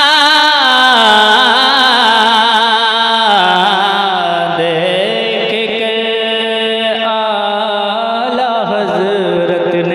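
A man singing a naat, drawing a word out into long ornamented notes with a wavering vibrato. The melody steps down about three seconds in and keeps winding without a break.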